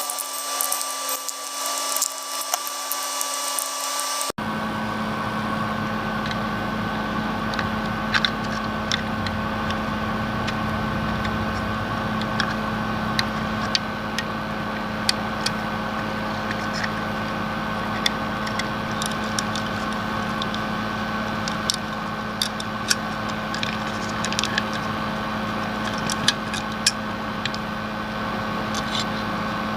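A small power tool running steadily with a constant hum, with scattered sharp clicks. About four seconds in the sound cuts abruptly to a steadier, rougher running noise.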